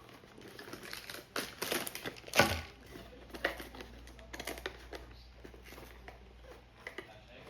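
Blind-box packaging being opened by hand: irregular crinkling and crackling, with a louder crackle about two and a half seconds in.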